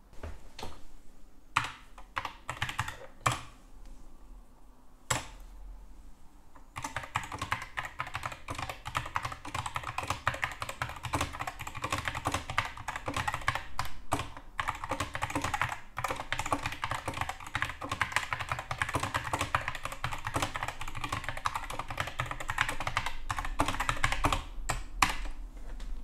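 Typing on an Epomaker SK61 60% mechanical keyboard. There are a few scattered key presses at first, then from about seven seconds in a steady run of fast typing that stops shortly before the end.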